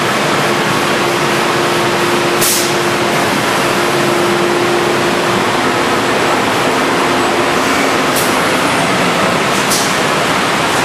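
HOMAG CNC woodworking machining center running: a loud, steady machine noise with a steady hum that stops about seven and a half seconds in. Short hisses come about two and a half, eight and ten seconds in.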